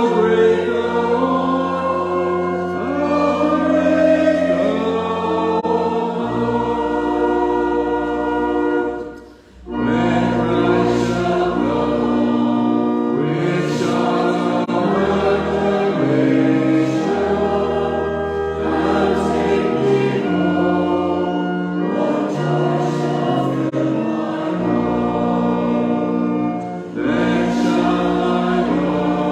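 A hymn sung by many voices together, with an accompaniment holding long, steady bass notes. The singing breaks off briefly about nine seconds in, between lines, then carries on.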